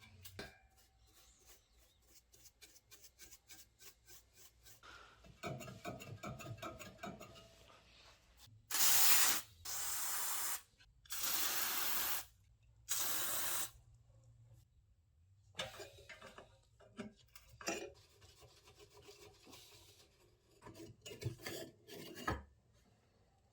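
Hand work on the old rusty table fan's metal parts: small clicks and handling noises, a stretch of scraping, then four loud rasping strokes of about a second each, followed by a few knocks near the end.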